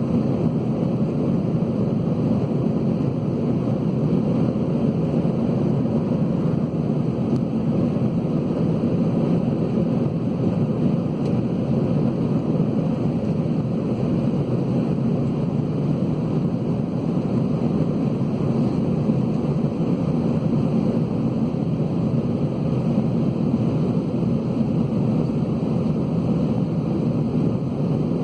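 Steady low cabin rumble of an Airbus A320-211 airliner, its CFM56 engines and airflow heard from inside the cabin, holding an even level throughout.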